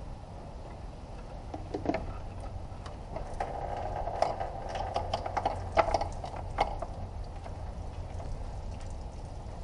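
Scattered clicks and light knocks of hands working loose clips, connectors and hoses at the top of a car's radiator and fan shroud, busiest in the middle of the stretch, over a steady low hum.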